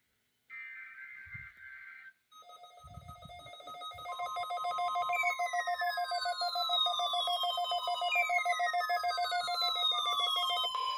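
NOAA Weather Radio warning alarm tone sounding during the weekly test: a steady 1050 Hz tone comes in about four seconds in. A lower, rapidly pulsing tone starts a couple of seconds before it, and falling pitch sweeps repeat about every three seconds. There is radio hiss in the first two seconds.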